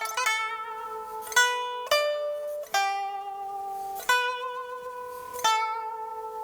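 Pipa (Chinese lute) played solo: about six single plucked notes, each left ringing with a wavering vibrato from the player bending the string.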